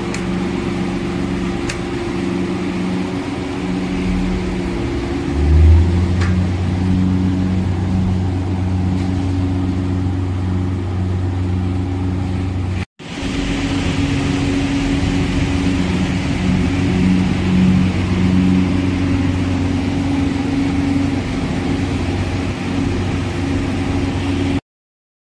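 Steady mechanical hum of electric fans running in a noodle drying chamber. A deeper drone comes in about five seconds in. The sound drops out for a moment about halfway through, returns without the deep drone, and cuts off abruptly near the end.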